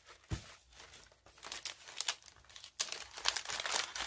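Clear plastic cellophane packaging crinkling as it is handled, with a soft thump just after the start and denser, irregular crackling in the second half.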